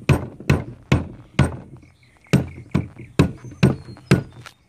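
Rubber mallet striking the aluminum pinion bearing carrier housing of a Volvo Penta SX sterndrive, knocking the carrier loose from the upper gear housing. About nine whacks in two runs, four then five, at roughly two a second with a short pause between.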